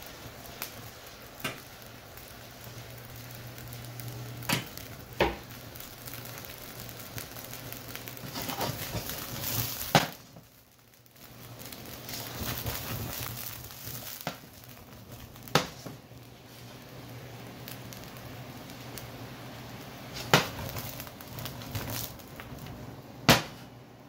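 Apple slices sizzling in a skillet while the brandy flambé burns down, a steady crackling hiss with sharp pops every few seconds; the hiss drops away briefly about ten seconds in.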